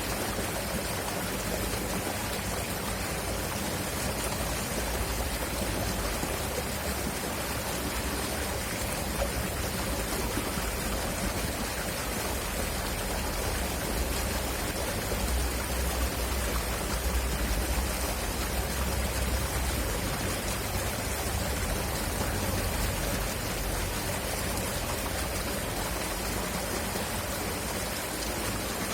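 River water flowing loudly, a steady rushing noise with a deep rumble underneath.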